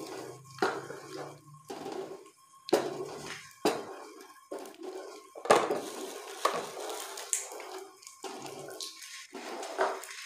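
Wooden spoon stirring jaggery halwa in an aluminium karahi: irregular scrapes and knocks of the spoon against the metal pan, about one every second, with the wet sound of the mixture and hot ghee sizzling in between.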